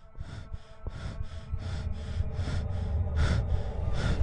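A person panting hard in quick, even breaths, about four a second, over a low rumble that grows steadily louder.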